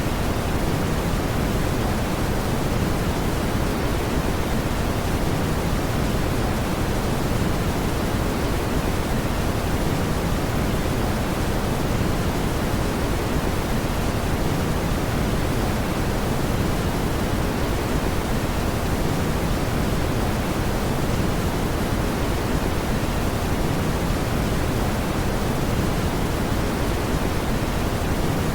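Steady brown noise: an even, unbroken rumbling hiss, heaviest in the low end, with no change in level or pattern.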